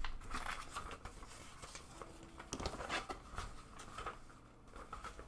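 Small plastic model-kit parts being handled and turned over, giving scattered light clicks and rustling.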